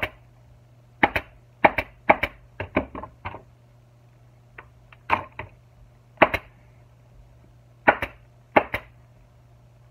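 Pneumatic upholstery staple gun firing staples through leather into a plastic motorcycle seat pan: a run of sharp shots, often in quick pairs, several a second at first and then spaced a second or so apart, as the last staples go in around the cover's edge.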